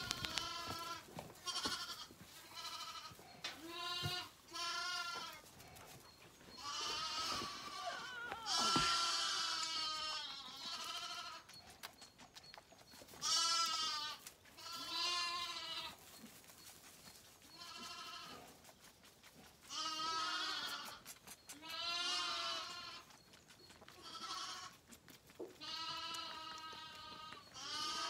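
Zwartbles lambs bleating again and again, each bleat up to about a second long with a quavering pitch, during bottle-feeding.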